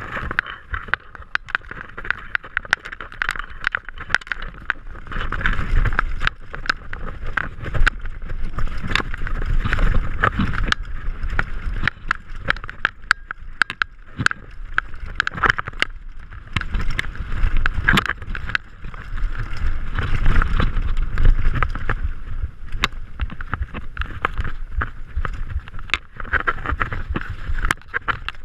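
Downhill mountain bike descending a dirt trail at speed: knobby tyres rumbling over dirt and rocks, with frequent sharp knocks and rattles from the bike over bumps and wind buffeting the microphone.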